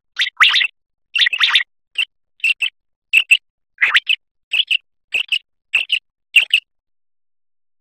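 Common quail calling: short, sharp notes, mostly in quick pairs, repeated about every half second. The calls stop abruptly near the end.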